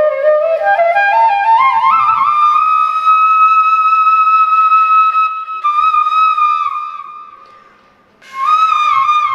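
Flute melody climbing in steps to a long held high note that fades out, then a new short phrase starting near the end.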